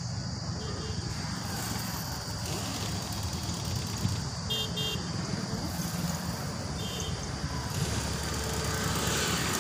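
Road traffic on the overbridge, vehicle engines running steadily, with three short high double beeps of a horn.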